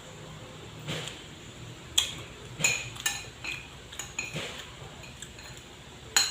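Cutlery clinking against a plate while eating: a handful of sharp, irregular taps of a spoon or fork on the dish, each with a short ring.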